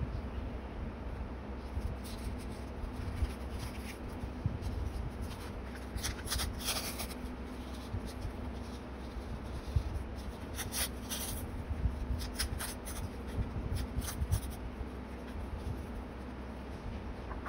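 Hands handling paper on a journal page: soft rustling and crinkling of paper and sticker sheets, with louder crisp crinkles about six seconds in and again around eleven seconds.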